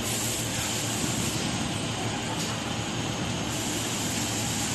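SUDIAO-M1 CNC door processing center running: a steady mechanical hum and hiss from the machine and its dust extraction while the machining head works over a door panel.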